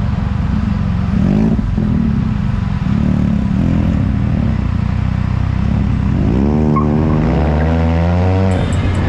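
Can-Am Spyder F3's three-cylinder engine running under way. It revs up about six seconds in, holds a higher pitch for a couple of seconds, then eases off near the end.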